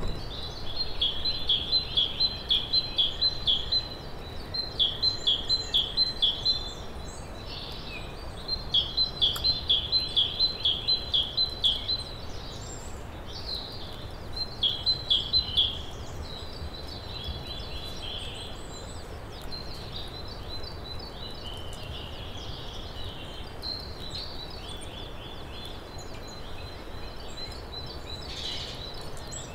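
A songbird singing four bouts of rapid, evenly spaced high notes, each bout lasting two to three seconds, in the first half; later only fainter, scattered twittering over a steady low outdoor background hum.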